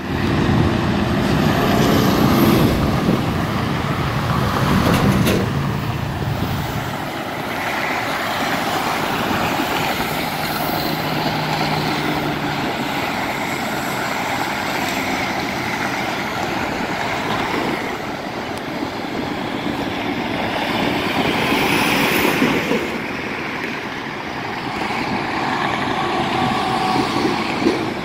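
Continuous noise of freeway traffic: tyres and engines of cars and trucks on a multi-lane highway. A deeper, louder rumble fills the first seven seconds or so, and the noise swells again a little after twenty seconds as heavier vehicles pass.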